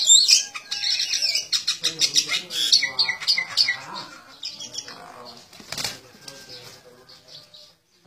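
A small bird chirping shrilly and rapidly, many short high calls in quick succession, with fluttering wings. The chirps thin out and fade after about four seconds, and a single sharp knock comes near six seconds in.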